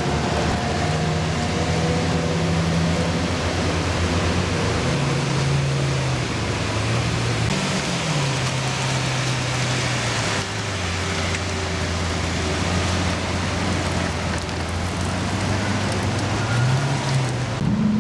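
Lamborghini engines running at low revs, the pitch rising briefly about eight seconds in and again near the end, over a steady hiss of rain.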